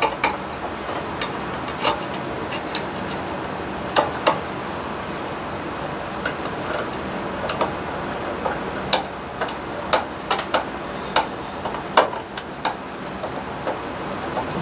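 Irregular clicks and taps of a hand screwdriver and small screws against the sheet-metal thermostat bracket of a baseboard heater, as the thermostat's mounting screws are fitted, over a steady hiss.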